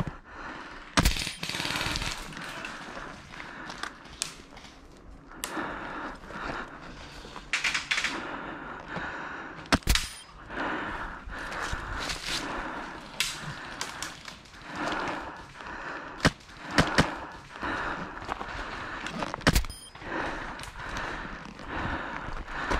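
Airsoft gunfire: scattered sharp shots and short bursts, a few of them much louder, with rustling between the shots.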